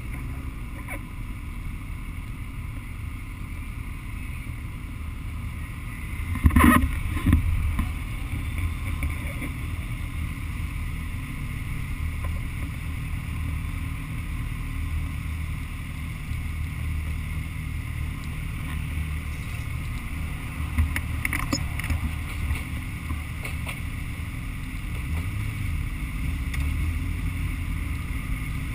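Motorcycle engine running low and steady as the bike rolls slowly and then waits in city traffic, with a steady rush of wind over it. A brief loud clatter comes about six seconds in, and a smaller one around twenty-one seconds.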